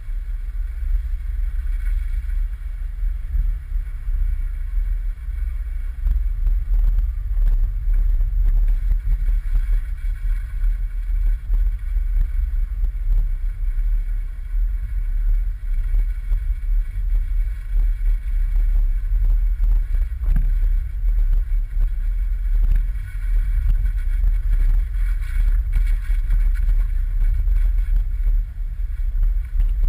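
Jeep Wrangler JK driving slowly over a rough snowy dirt trail, heard from a hood-mounted camera as a steady, deep rumble of engine and wind. Scattered knocks and rattles come from the bumps of the trail.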